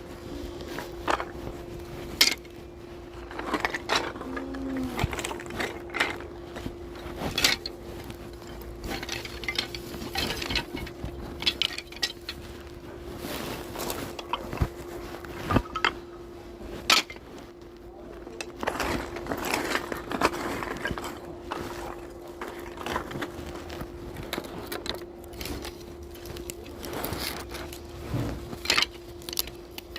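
Sawmill workshop ambience: a machine running with a steady hum, under frequent irregular knocks and clatters.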